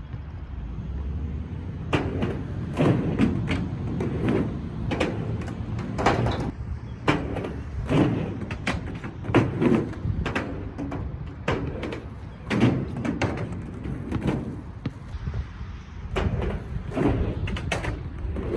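Skateboard wheels rolling with a steady low rumble, broken by frequent, irregular clacks and knocks from the board.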